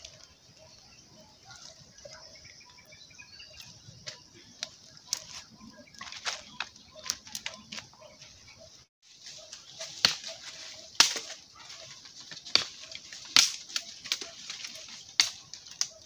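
Wood fire crackling and popping under green bamboo cooking tubes, then, about halfway through, louder irregular snaps and rustles of dry branches being carried through dry leaf litter.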